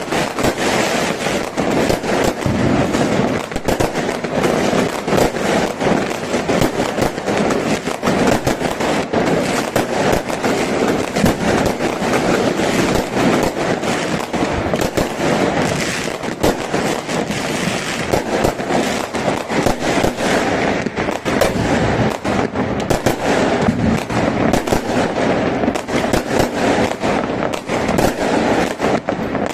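Fireworks going off in a dense, continuous barrage: rapid cracks and bangs, many each second, with crackling in between.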